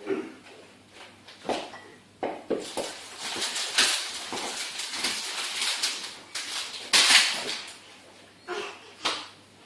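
Bottles, jars and other items clinking and rattling in an open fridge as babies handle them, with irregular knocks and a louder bang about seven seconds in.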